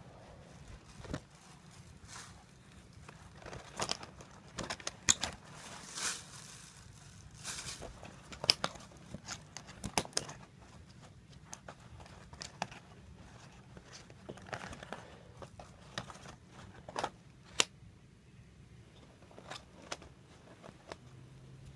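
Handling noise of a phone held close up: irregular rustling and crinkling with scattered sharp clicks as the phone moves and a fluffy blanket brushes over it. The loudest clicks come about five and eight and a half seconds in.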